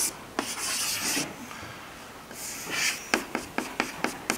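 Chalk on a blackboard: a long scratchy stroke about half a second in, another scratch a couple of seconds later, then a quick run of short chalk taps and ticks as small letters are written.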